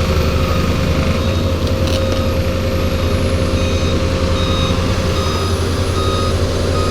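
Heavy machinery's diesel engine running steadily, with a reversing alarm beeping in short repeated tones over it.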